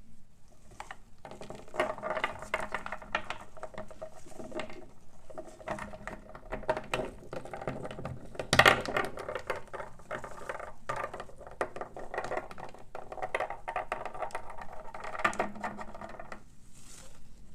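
Parrot gnawing at a walnut shell with its beak: rapid clicking and scraping, with one sharp crack of shell about halfway through.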